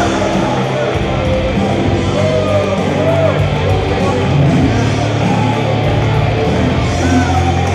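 A wrestler's hard-rock entrance theme, loud and steady, driven by electric guitar.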